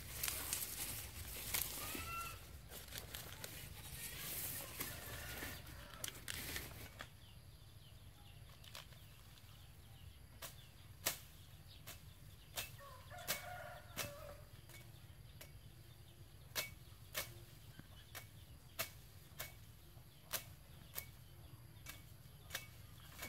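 Lemongrass stalks and leaves rustling as they are handled and pulled for several seconds. Then comes a series of sharp, irregular single clicks, about one or two a second, as a cleaver cuts through the stalks.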